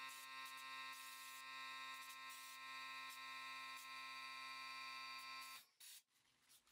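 Faint, steady electrical hum with a buzzing edge that cuts off abruptly about a second before the end.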